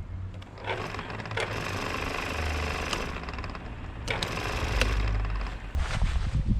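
Power tool running with a steady low hum, with two stretches of harsher working noise, one from about a second in and one about four seconds in, and a few sharp clicks.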